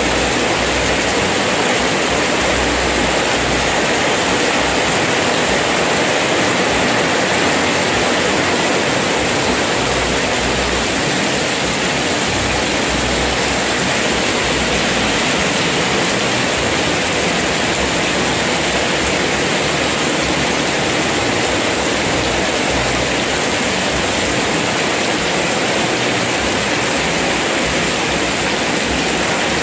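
Heavy rain pouring down and splashing on a flooded road and pavement: a dense, steady hiss with no let-up.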